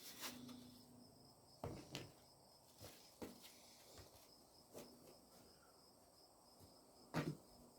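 Near silence with a faint, steady high insect chirring, broken by a few soft knocks and taps as raw pork chops are handled on a work surface; the loudest knock comes near the end.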